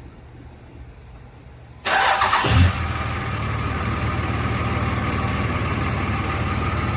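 Dodge Ram 2500 pickup engine starting: a short burst of starter cranking about two seconds in, then the engine catches and settles into a steady idle.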